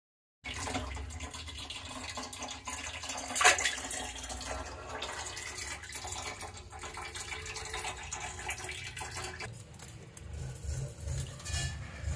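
Water splashing and sloshing in a plastic tub as a live fish is handled in it, with one louder splash about three and a half seconds in. Dull low thumps near the end.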